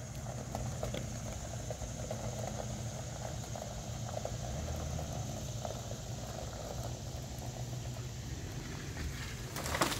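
Ford E-series van's engine running steadily at low revs as it pulls on a tow strap tied to a tree. Near the end, louder crackling starts.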